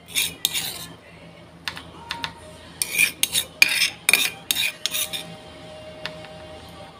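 Metal spoon scraping and clinking as sambal is spread over a fried gourami on a plate. The strokes come in short runs, a couple near the start and a quick series from about three to five seconds in, then they stop.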